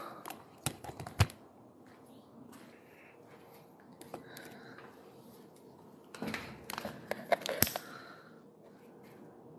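Irregular clicks and knocks with some rustling, close to the microphone. They come in two clusters, one in the first second or so and another from about six to eight seconds in. The sharpest knock is a little over a second in.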